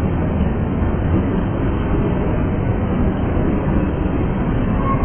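Freight train's tank cars and covered hopper cars rolling past, a steady low rumble of steel wheels on the rails.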